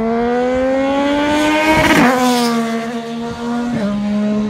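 Engine sound effect: a vehicle engine climbing steadily in pitch as it speeds up, then sweeping past with a whoosh and a drop in pitch about two seconds in. It then holds a steady, lower note.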